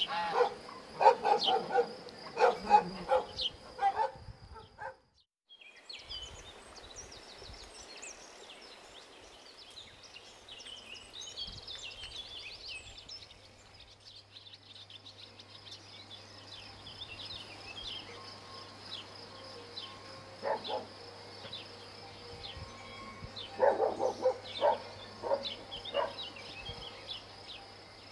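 Dogs barking in short bursts, with a run of barks at the start and another cluster near the end. Birds chirp faintly in between.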